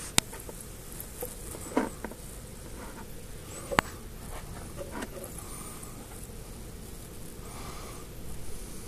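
Handling noise from a handheld camera: a few sharp clicks and a soft knock over steady hiss, with a brief stretch of rubbing near the end.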